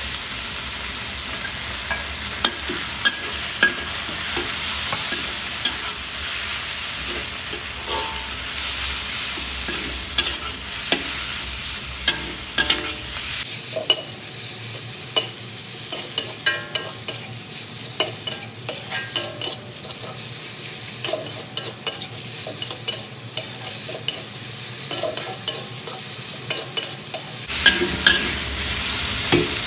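Sliced raw meat sizzling in hot oil in a wok, with a metal spatula scraping and tapping against the wok as it is stir-fried. The spatula taps come thicker in the second half.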